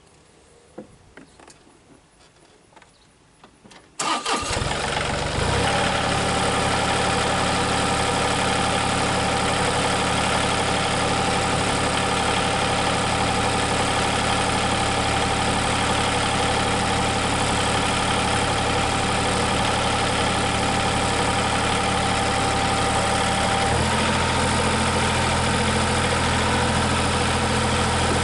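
An engine starts about four seconds in and runs steadily. About four seconds before the end its note changes and deepens.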